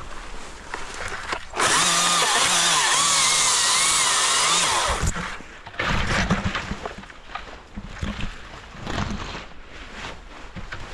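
Husqvarna 542i XP battery chainsaw running at full speed for about three seconds, its electric whine wavering in pitch as it cuts into spruce branches, then stopping abruptly. Afterwards, spruce branches rustle and snap against the wearer as they push through the thicket.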